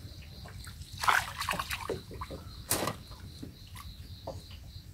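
Water sloshing and splashing in short, irregular splashes, the loudest about a second in and just before three seconds in.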